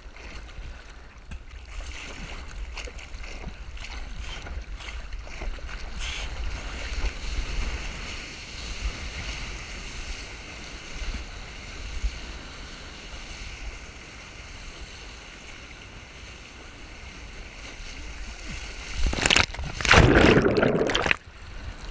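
Sea water sloshing and rushing past a surfboard-mounted camera as the board moves through the surf, with a low rumble underneath. About nineteen seconds in, a loud burst of churning water lasting about two seconds as the board and camera go under the water; it cuts off suddenly.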